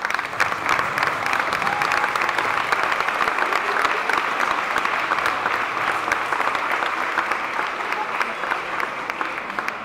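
Audience applauding, with a dense patter of clapping that starts abruptly and fades slowly near the end.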